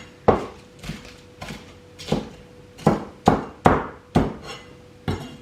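Kitchen knife chopping Chinese spinach on a cutting board: about ten sharp chops at an uneven pace, the loudest bunched together around the middle.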